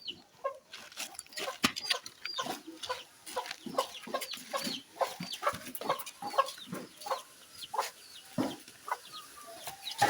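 Chickens clucking, many short calls in quick succession.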